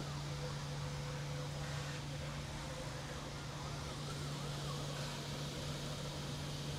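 3D printers running mid-print: a steady low hum, with faint stepper-motor whines that rise and fall in quick arcs during the first few seconds.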